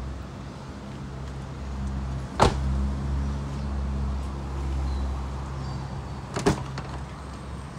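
Perodua Aruz doors being shut, twice: a loud thud about two and a half seconds in, then a shorter double click-thud about four seconds later. A steady low hum runs underneath.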